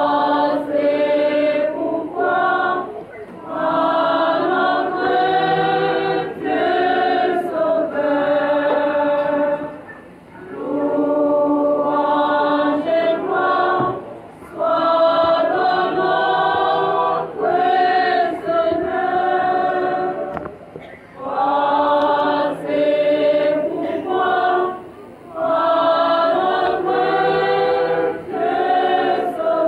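Church choir singing, in sung phrases with short breaks between them.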